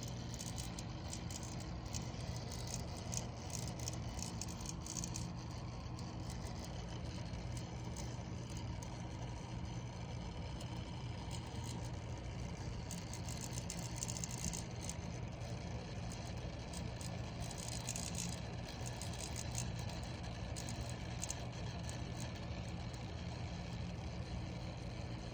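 Bewinner water-cooling pump running with a steady hum and an irregular grinding rattle over it, the grinding noise of a faulty pump.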